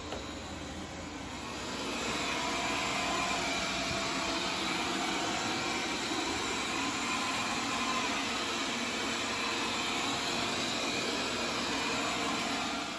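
Cecotec Conga 3290 robot vacuum running with a steady whir of its suction fan and brushes, first cleaning a rug in normal mode, then, louder from about two seconds in, vacuuming and mopping a tiled floor in eco mode.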